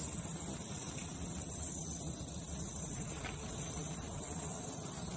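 Steady high-pitched buzz of night insects over a low outdoor rumble, with a couple of faint ticks.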